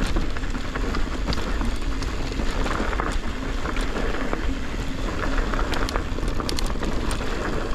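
Mountain bike rolling fast down loose, dusty dirt singletrack: steady wind buffeting the on-bike microphone, tyres crunching over the dirt, and scattered clicks and rattles from the bike.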